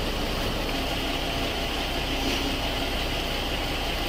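Steady vehicle engine hum with hiss, even throughout with no distinct events.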